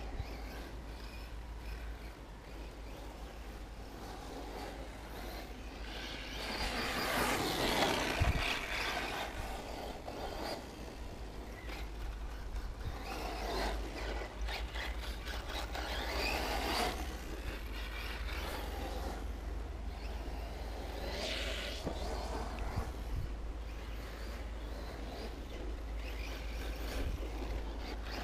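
Radio-controlled off-road cars driving on a dirt track. Their motor and tyre noise swells several times as they pass, loudest about seven to nine seconds in, over a steady low rumble.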